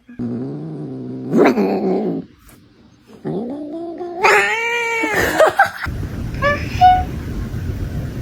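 Cat yowling: two long, drawn-out, wavering yowls, then a couple of short meows over a steady background hiss.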